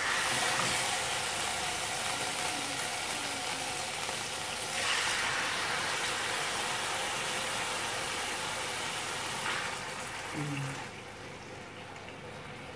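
Marinated chicken fillets sizzling in hot olive oil in a frying pan, a steady hiss that surges as fresh pieces go into the oil near the start and about five seconds in, then dies down near the end.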